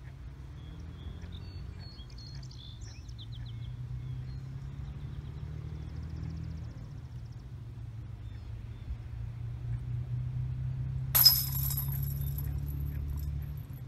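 An Innova XT Whale disc golf putter strikes the chains of a metal disc golf basket about eleven seconds in and drops into the basket. It makes a sudden metallic crash, with the chains jingling for about two seconds.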